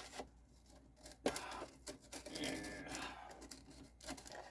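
Workshop handling noise from a wooden stop being shifted into square: a sharp knock about a second in, a couple of seconds of wood scraping and rubbing, and another knock near the end.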